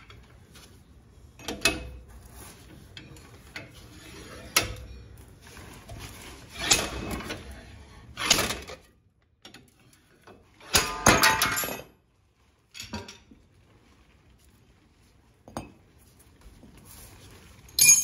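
Slide hammer pulling a front wheel hub out of an aluminum steering knuckle: about eight sharp metallic clanks at uneven intervals, a cluster of them about eleven seconds in being the loudest. The hub comes free with little effort.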